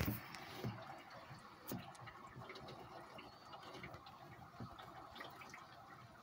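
Heavy rain heard from behind a window: a steady hiss with scattered ticks of drops. A few soft thumps in the first two seconds.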